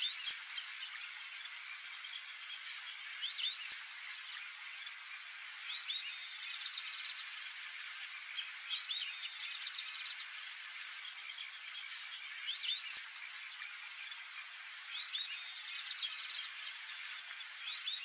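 Wetland ambience: a steady insect hiss with many short, high bird chirps and whistles scattered throughout, coming in little clusters.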